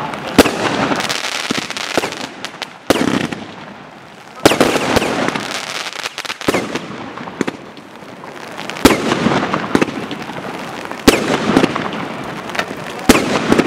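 Aerial fireworks shells bursting one after another: about six loud, sharp bangs at irregular intervals of a second or more, with lighter pops and a rolling echo between them.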